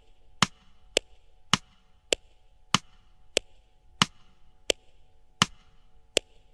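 Tick-tock clock effect: about ten sharp, woody clicks a little over half a second apart, spacing out slightly towards the end, over a faint lingering held note.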